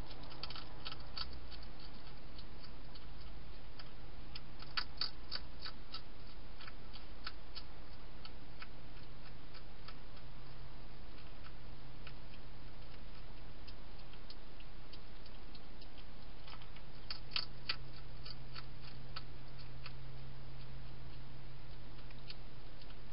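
Wild hedgehog eating dry food inside a plastic feeding station: irregular crisp crunching clicks, bunched in quick runs near the start, around five seconds in and again near seventeen seconds, over a steady low hum.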